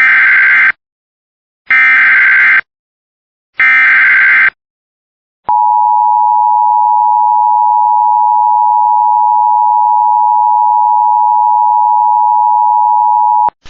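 Emergency Alert System signal for a flash flood warning: three short bursts of the SAME digital header tones, about a second apart, then a steady attention tone held for about eight seconds that cuts off sharply.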